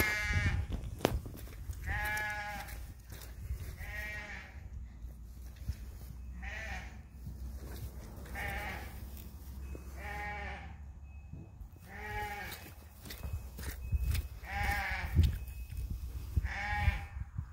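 Sheep bleating over and over, one bleat about every two seconds.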